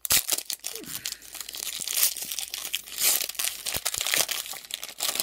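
Foil Pokémon booster pack wrapper crinkling and tearing as a pack is ripped open, a continuous crackle of many small crinkles.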